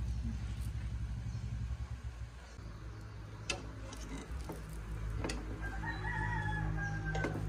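A rooster crowing once, a single long call of over a second that falls slightly at its end, near the end. Underneath is a steady low hum, and there are a few sharp clicks.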